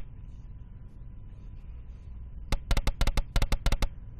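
Online 50 Dragons slot game's reel sound effect: a quick run of about a dozen sharp clicks about two and a half seconds in, as one £5 spin plays out.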